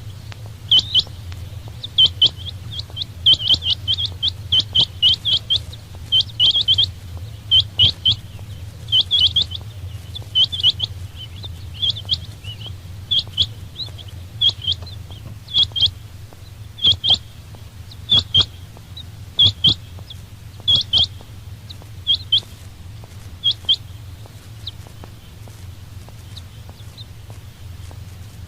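Quail (batair) calling: short, sharp high chirps in quick groups of two to four, repeated about once a second, then coming more sparsely and fading out in the last few seconds. A steady low hum runs underneath.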